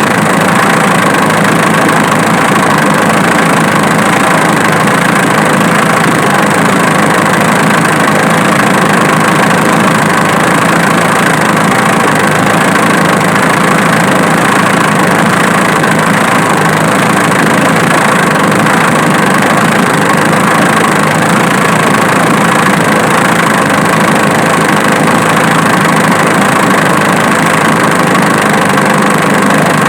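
Diesel engine idling steadily. The engine has a snapping noise that was traced to the alternator, not the injection pump.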